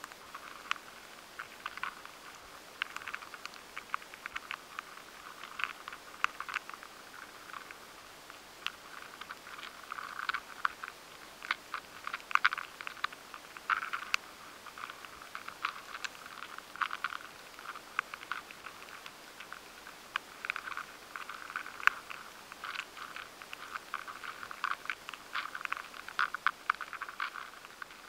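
Rice weevils moving inside stored grain, heard through a high-sensitivity vibration pickup: irregular clusters of sharp ticks and scratches over a steady hiss, giving an impression of twisting and turning.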